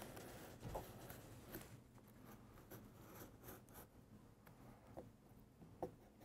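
Faint scratching of a craft knife blade drawn around the edge of a wooden coaster, cutting through a photo print on a cutting mat, with a few soft ticks along the way.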